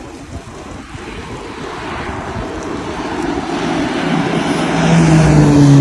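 Fire Boss single-engine turboprop air tanker flying in, growing steadily louder and passing close near the end, its engine pitch dropping as it goes by.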